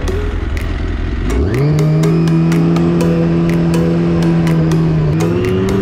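Snowmobile engine idling with a low rumble, then revving up about a second and a half in and holding a steady pitch as the machine pulls away, rising again near the end.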